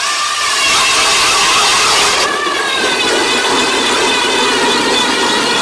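ION X40 40-volt electric ice auger drilling into lake ice: a steady motor whine over the hiss of the blades cutting and throwing ice chips. A little over two seconds in, the high part of the hiss thins while the whine runs on.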